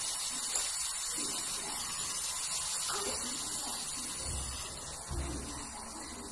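Gas brazing torch flame hissing steadily while copper tubes are joined to a refrigerator compressor's ports, with two low bumps about four and five seconds in.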